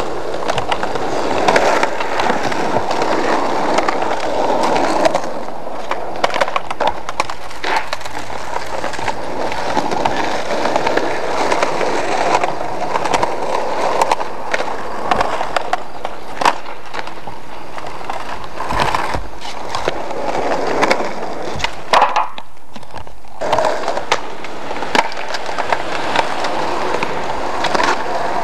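Skateboard wheels rolling on rough concrete, with scattered sharp clacks of boards hitting and landing, and a brief lull about twenty-two seconds in.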